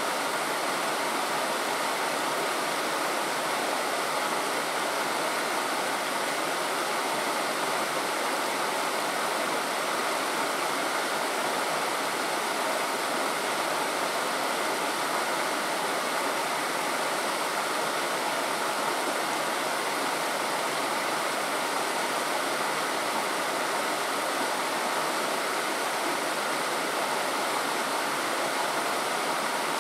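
Flowing stream water rushing steadily, an even unbroken noise.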